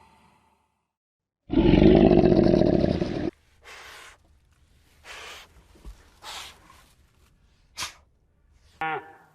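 An animal gives one loud, rough, roar-like call lasting about two seconds, followed by several short, softer noisy sounds and a brief pitched call near the end.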